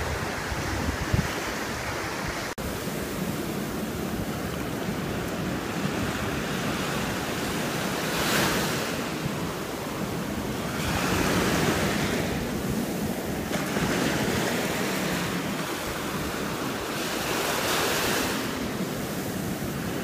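Sea surf on a sandy beach: waves breaking and washing up over the sand as a steady rush. The rush swells louder several times as each wave runs in.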